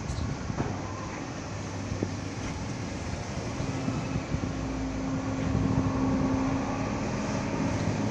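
Engine running with a steady low hum and rumble that grows louder from about halfway through, with a few faint clicks.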